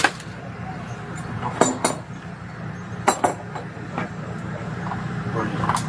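A few short, sharp metallic clinks and knocks, scattered irregularly over a steady low hum.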